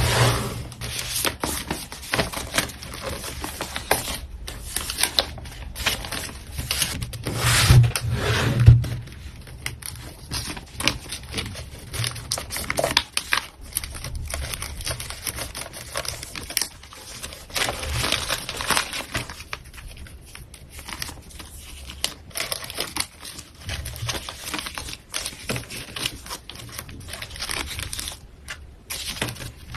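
Packaging crinkling and rustling as an order is packed by hand, with irregular small clicks, taps and scrapes; loudest about eight seconds in.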